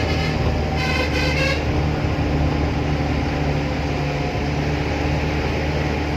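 Musical horn of an Indian lorry playing a short pulsing run of notes about a second in, over the steady low drone of a vehicle engine.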